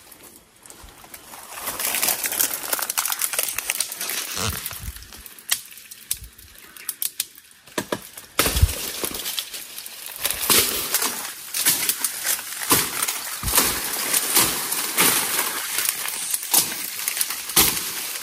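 Feet and bodies pushing through dense forest undergrowth: leaves rustling and twigs and branches snapping, a run of irregular crackles that grows busier and louder about eight seconds in.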